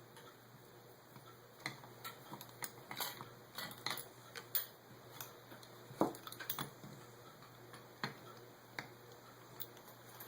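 Light metallic clicks and taps of small carburetor parts and hand tools being handled while the choke is taken off a Holley carburetor, irregular and scattered, the sharpest about six seconds in.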